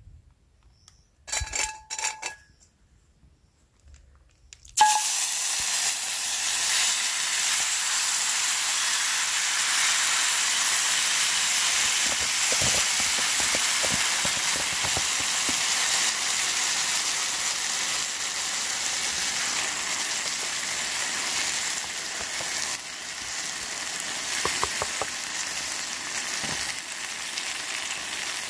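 Spicy chicken and rice cakes in sauce sizzling in a hot cast-iron pan over a wood-burning camp stove. The sizzle starts suddenly about five seconds in, when the food meets the hot pan, and goes on loud and steady, easing a little near the end. Before that, two short ringing notes.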